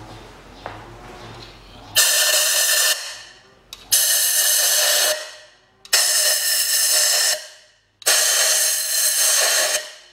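Compressed-air blow gun blowing out the spark plug wells of the engine: four loud hissing blasts about two seconds apart, each starting sharply and tailing off after a second or so.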